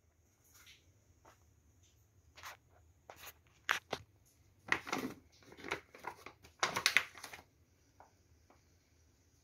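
Plastic grocery bags and wrapping crinkling and rustling in irregular crackles, densest and loudest in the middle stretch.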